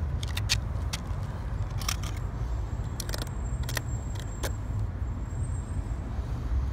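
Steady low outdoor rumble, with scattered short clicks and rustles as a strip of white roof-repair fabric is handled and pulled from its roll.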